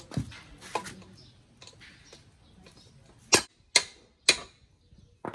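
Three sharp metal-on-metal hammer blows on the pinion shaft of a front differential, about half a second apart, driving the shaft out of the housing; light tool clinks before them.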